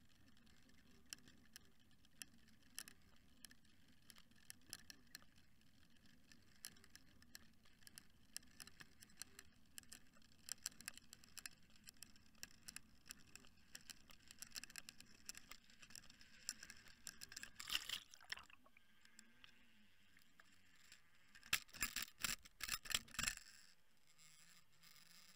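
Faint underwater noise from a camera housing towed through the sea on a fishing line: a low steady rush with scattered sharp clicks and crackles, growing busier towards the middle and ending in a short burst of louder clicks.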